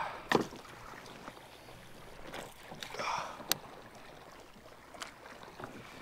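Handling noises in a kayak while a hooked fish is netted and worked free: a sharp knock about a third of a second in, a thinner click about three and a half seconds in, and soft rustling between.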